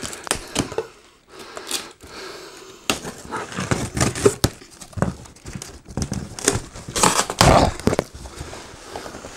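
Knife slicing packing tape on a large cardboard box, then tape tearing and cardboard flaps scraping and crinkling as the box is opened, in irregular bursts with the loudest rustle near the end.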